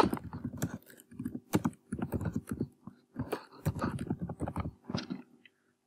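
Typing on a computer keyboard: a run of irregular keystrokes that stops shortly before the end.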